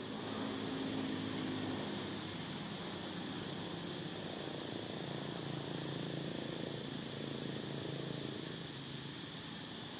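An engine droning, its pitch shifting over the seconds, over a steady high hiss.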